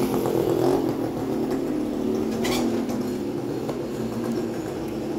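A vehicle engine running steadily nearby, with a short click about two and a half seconds in.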